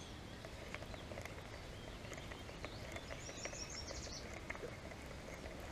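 Quiet outdoor ambience with a bird giving a quick run of high repeated notes about three seconds in, and faint clicks from fingers handling the line at a baitcasting reel.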